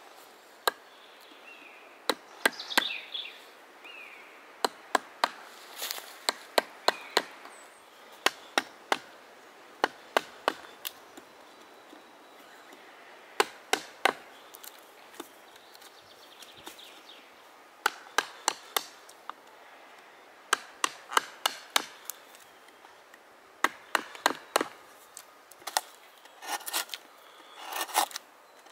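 Hand chisel with a curved gouge blade cutting into fresh birch wood as the bowl of a cup is hollowed: sharp cracks as chips break away, in clusters of a few with short pauses between, and a few scraping cuts.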